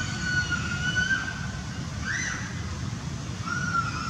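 Macaque calls: long, high, whistle-like coos, one held steady at the start, a short rising-and-falling call about two seconds in, and another long call starting near the end, over a steady low rumble.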